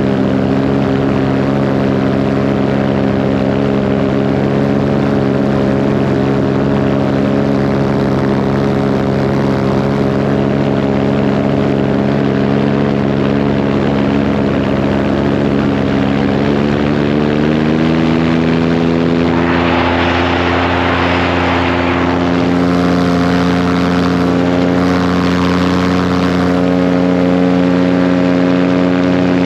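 Paramotor engine and propeller running steadily, the engine speeding up to a higher pitch a little over halfway through. A rush of hissing noise follows for about two seconds.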